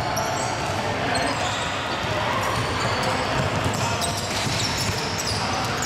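Game sounds from a youth basketball game in a large gym: a basketball bouncing on the wooden court, players' shoes on the floor, and scattered children's voices, all echoing in the hall.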